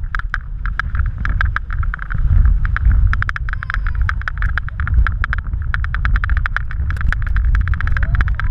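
Rush of wind over a waterproof action camera on a tube towed fast behind a motorboat, with a deep rumble. Spray and the wake's chop slap against the tube and the camera housing in rapid, irregular knocks and clicks.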